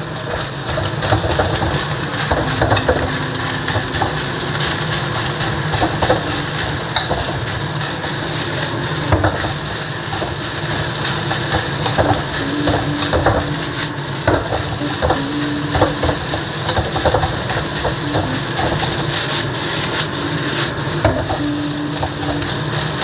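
Leftover rice frying in oil with salted egg yolk: a continuous sizzle, with a metal spatula repeatedly scraping and tapping the pan as the rice is stir-fried.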